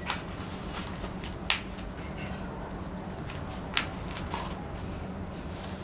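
A sheet of paper being folded diagonally into a triangle and pressed flat by hand: soft rustling with three sharp paper crackles, one at the start, one about a second and a half in and one near the four-second mark.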